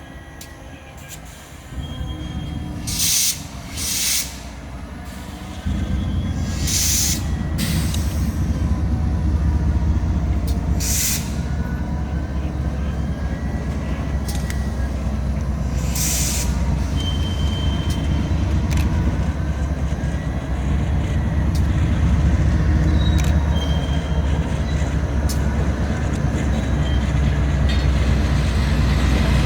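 Diesel freight locomotives running, a low rumble that steps louder about two seconds in and again near six seconds as the engines load up. Several short, sharp hisses of air cut through, with a few brief faint high squeals.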